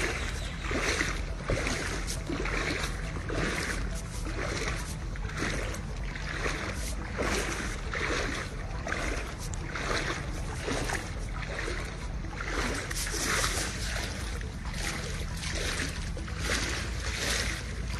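Floodwater splashing and sloshing in a steady rhythm, about once a second, as something moves through it.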